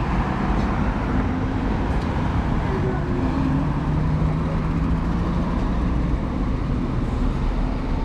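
City street traffic: cars driving past, engine and tyre noise, with a steady engine hum from a passing vehicle in the middle.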